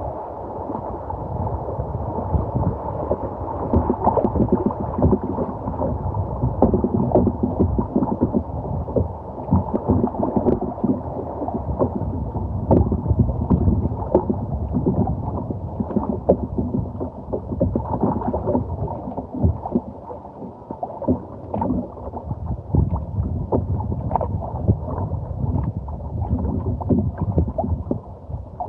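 Water sloshing, gurgling and splashing around a kayak on the river, with irregular knocks against the hull, sounding muffled.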